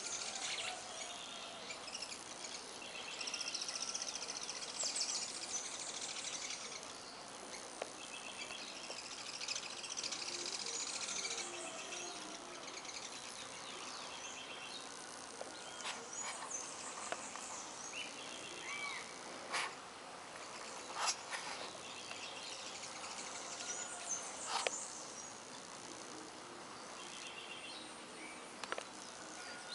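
Several birds singing and calling over one another, with a faint buzz from bees at the flowers of the trees. A few short, sharp sounds stand out in the second half.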